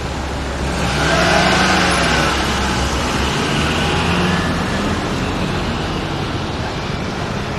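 Motor vehicle traffic on a town street: engine hum and road noise, swelling about a second in as a vehicle passes close by.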